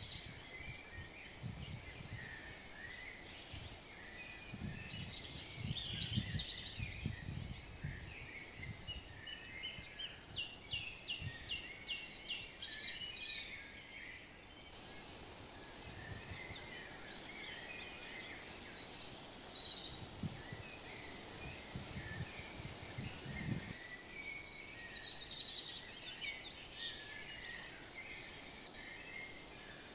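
Several songbirds singing and chirping, with a quick run of repeated high notes about ten seconds in. Bouts of low thumps and rustling sit underneath, in the first third and again past the middle.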